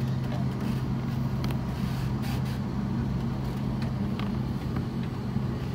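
Airbus A350-900's Rolls-Royce Trent XWB engines running at taxi idle, heard inside the cabin as a steady low hum, with a few faint clicks.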